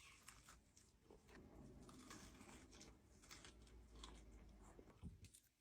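Faint close-up chewing and crunching of fried fast food, with scattered small crackling clicks.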